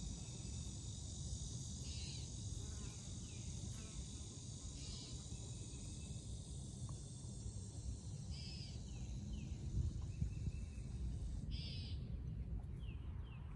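Outdoor farm ambience: a steady high-pitched insect chorus with a bird calling over it about every three seconds, each call a short burst followed by a few falling chirps. The insect sound stops about eleven seconds in, and a low rumble runs underneath.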